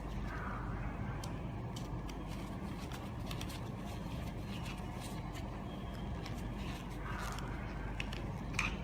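Light scattered clicks and taps of the plastic alarm casing being handled and put back together, over a steady low background hum.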